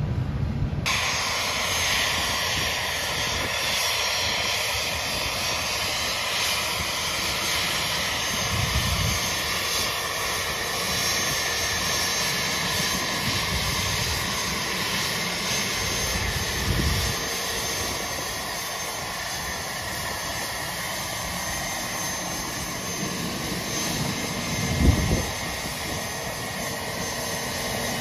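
Bombardier Challenger 300 business jet's two Honeywell HTF7000 turbofans running at low power as it taxis, a steady jet whine over a rumble. A short low thump near the end.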